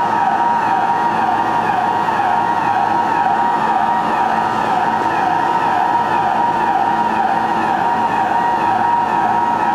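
Station emergency alarm buzzer on a subway platform, a loud warbling electronic tone repeating over and over without a break. It signals an emergency on the line.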